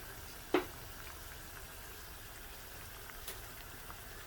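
Pot of vegetable soup simmering on the stove, a low steady bubbling, with one sharp click about half a second in and a faint tick later.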